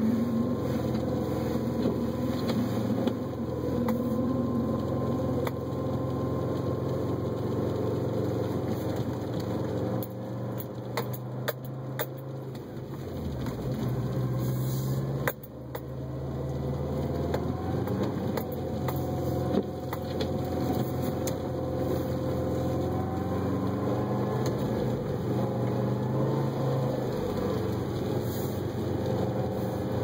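2012 Subaru WRX's turbocharged flat-four engine running at low revs, heard from inside the cabin while driving on snow. The engine note dips and briefly drops away about halfway through, then picks up and runs steadily again, with a few light clicks just before the dip.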